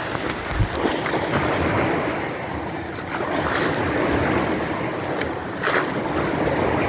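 Wave-pool water churning and sloshing with the artificial waves running, with splashes as a man wades and splashes through the water.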